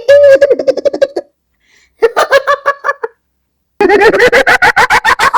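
Witch laugh: a cackling voice in three bursts of rapid, evenly pulsed laughter with short silences between them. The last burst starts near the end and is higher-pitched than the first two.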